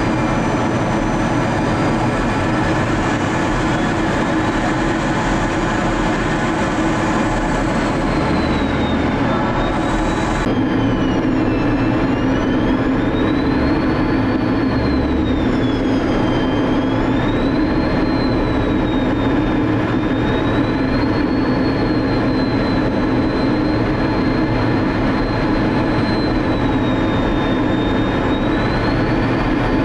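Steady noise of an F-16's jet engine and rushing air heard inside the cockpit, with a high whine that wavers up and down in pitch. The sound changes abruptly about ten seconds in.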